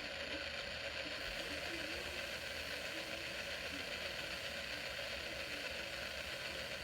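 Steady hiss of dead air on a radio broadcast where the Emergency Alert System header tones should follow the test announcement: the station's test has failed.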